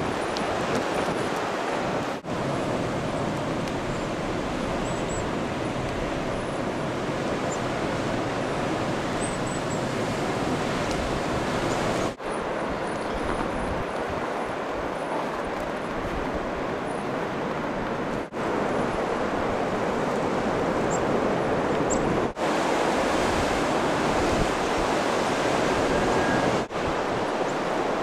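Blizzard wind blowing steadily, with wind buffeting the microphone, broken by a few momentary dropouts.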